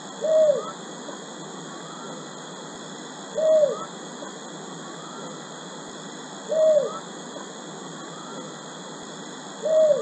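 Striated heron call: a single short note that rises and falls, repeated four times at even intervals of about three seconds.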